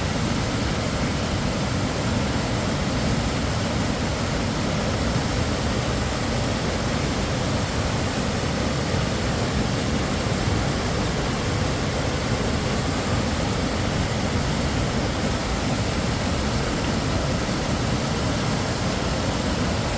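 Mountain whitewater cascade rushing steadily down rock ledges, an even, unbroken rush with a deep low rumble under it.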